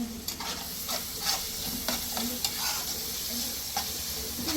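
Irregular scraping and clicking strokes, several a second, over a steady sizzling hiss: a utensil stirring in a pan.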